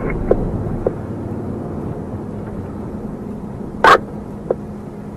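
Steady engine and road noise inside a moving patrol car, with a constant low hum and a few faint clicks. A short, sharp burst of noise comes about four seconds in.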